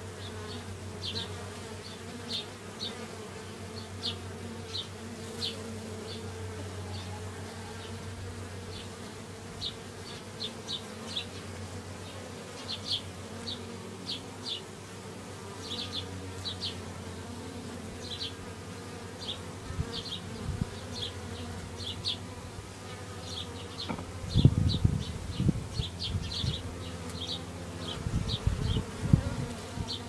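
Honeybees humming at a hive entrance, a steady low drone from a newly hived swarm of mixed Carniolan and Italian bees. Short high chirps repeat throughout, and a few loud low bumps come about two-thirds in and again near the end.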